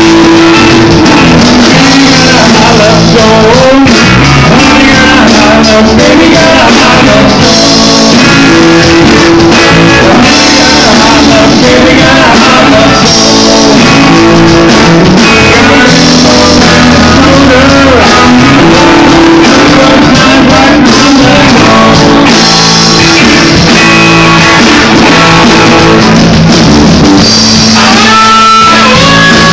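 Live rock band playing, led by two hollow-body electric guitars.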